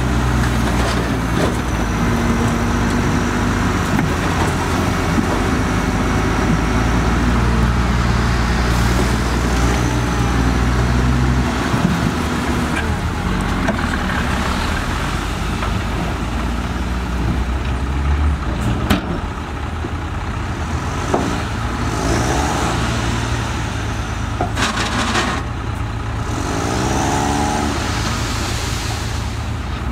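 Heavy diesel engines of earthmoving machinery (bulldozer and dump trucks) running. A deep steady engine note eases off partway through, and a few sharp knocks are heard in the second half.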